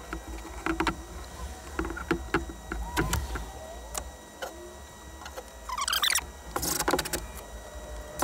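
Scattered clicks and knocks of tools and plywood being handled, then a cordless drill whirs up in a rising whine about six seconds in and runs briefly against the plywood tunnel piece.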